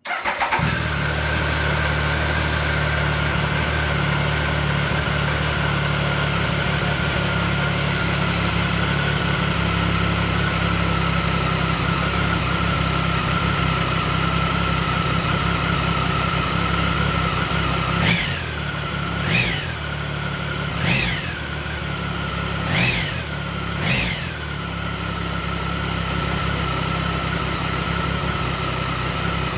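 Triumph Tiger 1050's three-cylinder engine started from cold, catching at once and idling steadily. About 18 s in, five short throttle blips rise and fall in pitch over some six seconds, then the engine settles back to idle.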